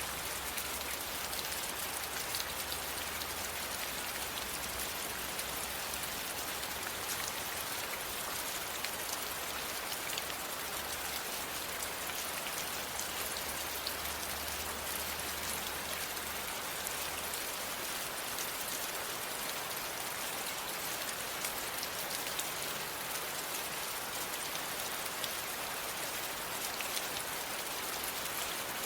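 Steady, even rain falling, with many fine drops pattering on a surface and a faint low rumble underneath that fades out a little over halfway through.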